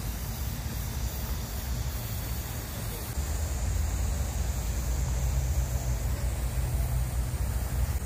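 Outdoor ambience: a steady low rumble that gets louder about three seconds in, with a faint high hiss over it.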